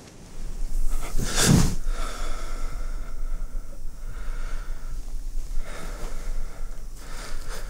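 A person breathing heavily, with one loud, sharp breath about a second and a half in, over a steady low hum.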